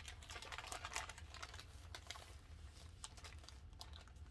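Paper wrapping around a handbag rustling and crinkling as it is handled, in quick, irregular light crackles and clicks.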